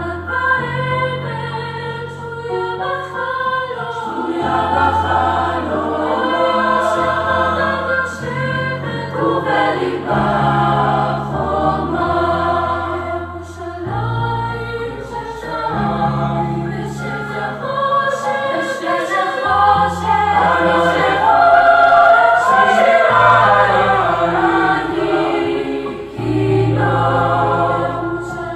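Youth choir singing in harmony over sustained low bass notes that change every few seconds.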